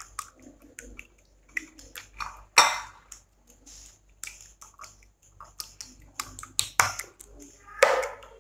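Three raw eggs being beaten with a silicone-coated whisk in a bowl: a quick, irregular run of clicks and taps of the whisk against the bowl, with a few louder knocks.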